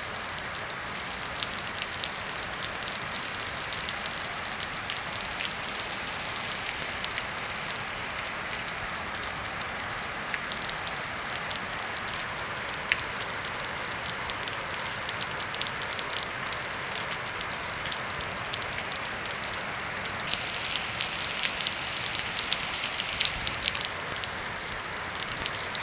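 Heavy rain falling steadily, a continuous hiss with the sharp patter of individual drops, the patter growing denser and louder toward the end.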